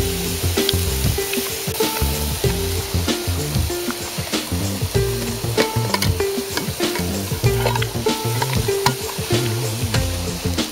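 Steady sizzling, crackling hiss from bonfire cooking, with frequent sharp pops. Background music with low held notes runs underneath.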